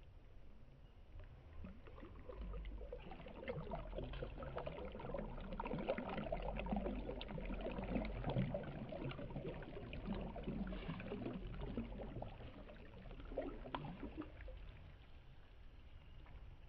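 A hand swishing through shallow flowing water, making irregular small splashes and trickles. They build up about two seconds in, are strongest in the middle, and fade out near the end.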